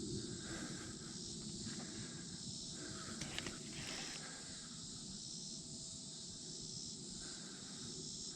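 Steady high-pitched chorus of crickets and other insects, with a low rumble underneath and a few faint ticks about three and a half seconds in.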